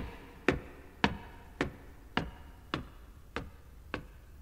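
Footsteps of shoes climbing wooden stairs: sharp, evenly paced knocks, about two steps a second.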